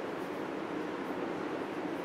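Steady room hiss with a dull hum, and faint squeaks of a felt-tip marker writing on a whiteboard.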